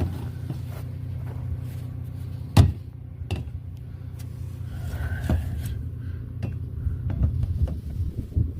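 Knocks and thumps of a snake carrying case being handled and tipped over, one sharp knock about two and a half seconds in louder than the rest, over a low steady rumble.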